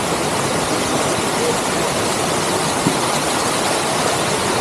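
Tumpak Sewu waterfall: steady, loud rushing of falling water with no breaks.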